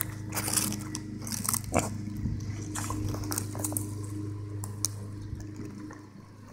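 Pot-bellied pig grazing close by: irregular crunching and tearing as it bites and chews grass, over a steady low hum that stops about five seconds in.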